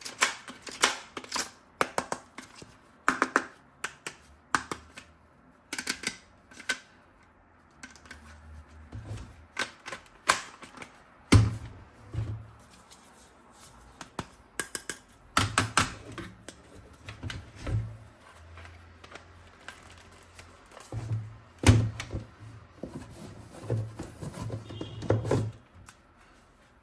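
Irregular run of sharp clicks and knocks from small hard objects being handled, with a few louder knocks.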